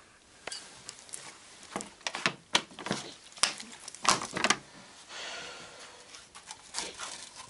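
Scattered sharp clicks and knocks from handling a plastic bottle and a finned motorcycle cylinder clamped in a bench vise, bunched about two to four and a half seconds in. No grinder or hone is running.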